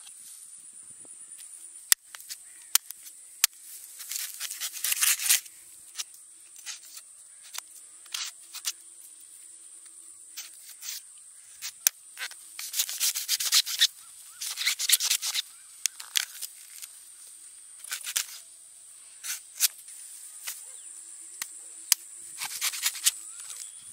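A large knife chopping and scraping into palmyra palm fruits: sharp single cuts scattered throughout, and three bursts of rapid scraping, slicing noise where the blade works through the fibrous husk and flesh.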